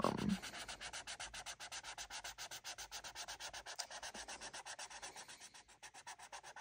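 Felt-tip marker rubbing on paper as an area is coloured in with quick, even back-and-forth strokes, about ten a second, growing fainter near the end.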